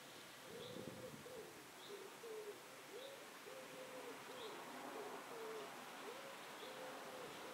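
A dove cooing: a long run of low hooting notes starting about half a second in. Faint high chirps from another bird come every second or so.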